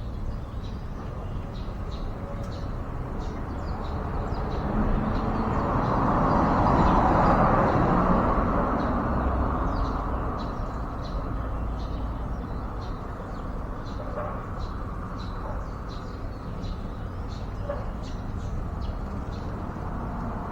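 Outdoor background in which a vehicle passes, swelling in a noisy rush that peaks a few seconds in and then fades, while short faint bird chirps come and go throughout.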